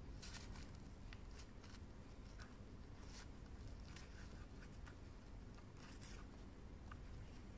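Faint, irregular rustling and scraping as a beaded headband is slid under satin ribbon loops on a paper-covered cardboard board, over a low steady hum.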